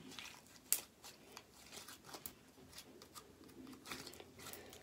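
Light handling of plastic slime containers: scattered faint clicks and crinkles, with one sharper click about a second in.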